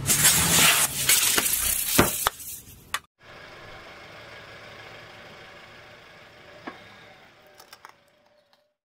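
Aerosol spray can crushed under a car tyre, bursting with a loud spraying hiss of escaping gas and a few sharp cracks, for about three seconds before it cuts off. After that comes a quiet steady background with a few light clicks near the end as the tyre presses onto a stainless-steel whisk.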